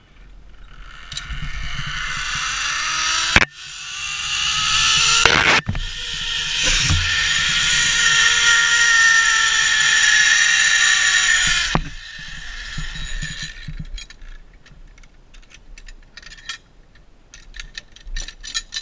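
Zipline trolley's pulley wheels running along the steel cable: a loud whirring whine that climbs in pitch as the rider picks up speed, then eases down and stops suddenly, with two sharp knocks along the way. After it stops come light metallic clicks and jingles of carabiners and lanyard at the landing platform.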